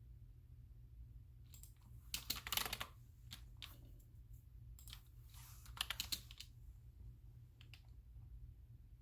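Typing on a computer keyboard in two short runs of quick key clicks, about a second and a half in and again about five seconds in, with a few stray clicks between, over a steady low hum.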